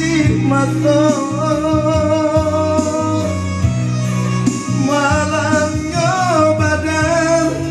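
A man singing into a handheld microphone over backing music, holding long notes with a wavering vibrato.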